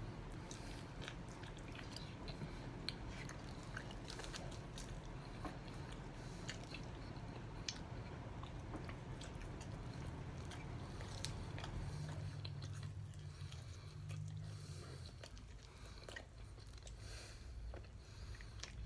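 Close-miked chewing and biting of sauced whole chicken wings, with many scattered small crunches and wet clicks.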